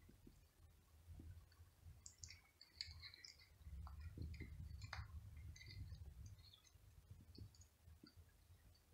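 Faint, scattered small clicks and crackles of a cat biting and chewing a dry matatabi (silver vine) stick. A low rumble swells in about four seconds in and fades by about seven seconds.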